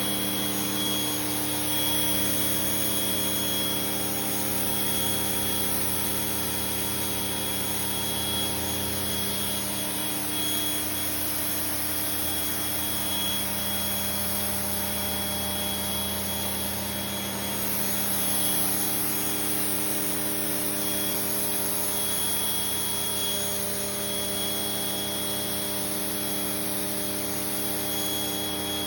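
PowerStroke 1600 PSI electric pressure washer running steadily: an even motor-and-pump hum with a steady high hiss, swelling slightly about two-thirds of the way through.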